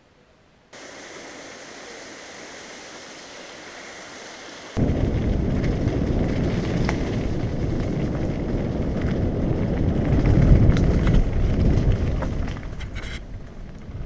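Wind buffeting a mountain bike's camera microphone together with tyre rumble on a dirt track at speed. A steadier, quieter hiss gives way abruptly about five seconds in to a much louder, dense low rumble that swells and then fades near the end, with a few small clicks of gravel or bike rattle.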